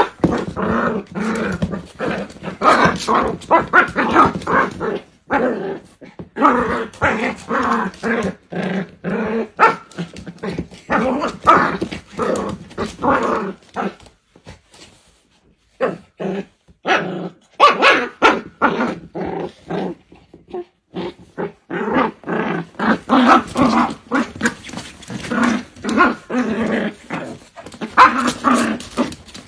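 A dog growling and barking in runs of a few seconds with short breaks, quieter for a stretch midway.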